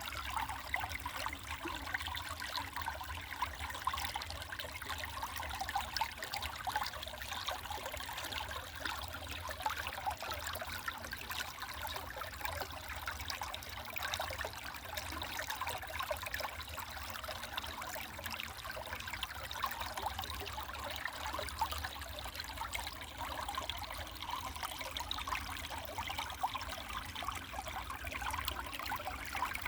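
Small mountain stream babbling and trickling over rocks, a steady flow of many small splashes.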